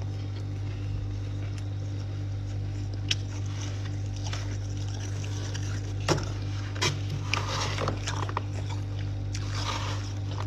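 Steady low hum, with a few sharp clicks and short scraping noises on frosty frozen items.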